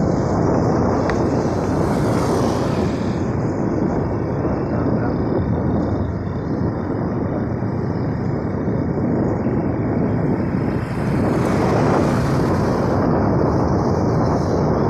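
Steady rush of wind on the microphone together with engine and road noise from riding along a road.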